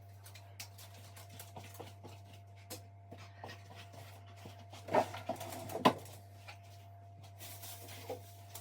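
Household objects being handled: scattered small clicks and taps, with two louder knocks about five and six seconds in, over a steady low hum.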